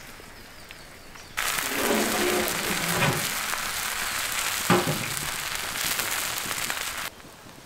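Egg omelets with chopped vegetables sizzling and crackling on a large hot griddle, starting suddenly about a second and a half in and cutting off abruptly about seven seconds in.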